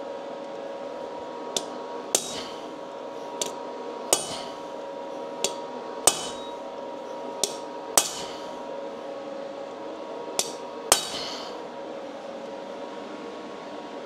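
Hammer upsetting a rivet through layered sheet metal on an anvil. About five pairs of blows, each a light tap and then, about half a second later, a harder blow that rings, over a steady hum.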